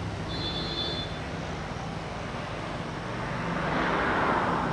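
Steady background traffic noise, swelling near the end as a vehicle passes.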